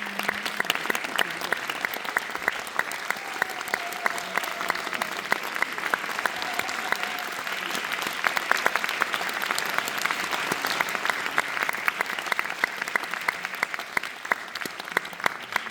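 Theatre audience applauding: many hands clapping steadily and densely.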